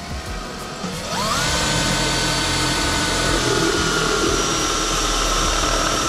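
A cordless drill spins up about a second in with a rising whine, then runs steadily as a 6 mm bit bores through the bag's faux leather and the metal plate built in behind it.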